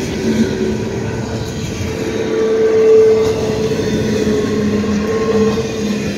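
Double-stack container well cars of a Union Pacific intermodal train rolling past at speed: a steady rumble of steel wheels on rail, with a ringing tone that grows louder about three seconds in.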